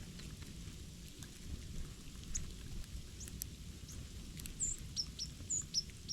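Small songbirds giving short, high chirps, a quick run of them in the last second and a half, over a low steady rumble.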